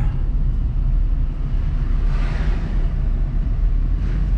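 Steady low rumble of a car's engine and road noise while driving, with a brief swell of hiss about two seconds in.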